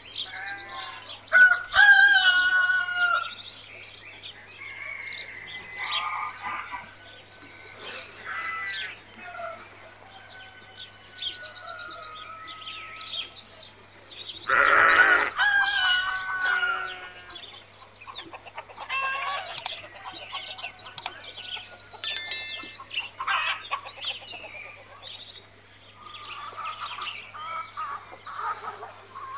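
Farmyard birdsong: chickens clucking and a rooster crowing among many small songbirds chirping and trilling, the calls overlapping busily throughout.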